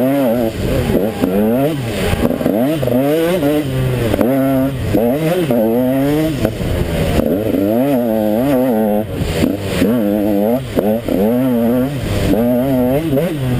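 KTM 150 XC two-stroke dirt bike engine revving hard, its pitch rising and falling over and over as the throttle and gears are worked on the race track.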